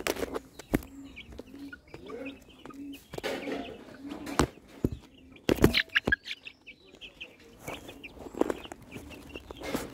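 White chickens clucking and giving short calls, with several sharp knocks among them, the loudest a little past halfway.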